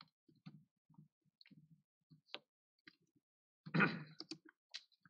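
Faint clicks and soft rustling of a paper sheet and pen being handled on a desk, with a sharp click about halfway through and one louder rustle just under four seconds in.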